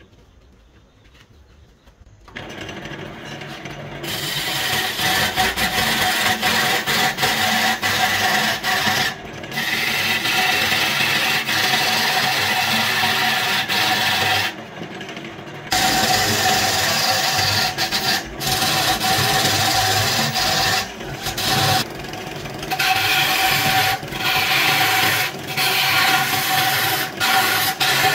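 A wood lathe spinning a log while a hand-held turning gouge cuts into it, peeling off wood shavings with a continuous scraping noise over the lathe's steady hum. The cutting starts about two seconds in and breaks off a few times as the tool lifts away, longest about halfway through.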